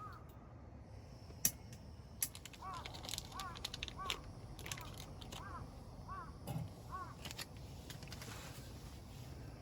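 A bird calling outdoors in a repeated series of short, arched notes, about one every 0.7 s, with sharp clicks and knocks scattered among the calls.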